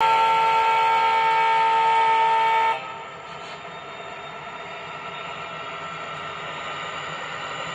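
HO-scale model GP40 diesel locomotive's horn sound, a loud steady chord of several tones held for under three seconds and cut off suddenly. After it, a much quieter, steady running sound of the model train continues.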